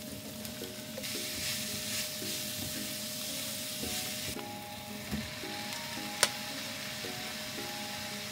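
Chopped onions sizzling in hot oil in a nonstick frying pan while a spoon stirs them. The sizzle is strongest for the first four seconds, then eases. A single sharp click comes about six seconds in.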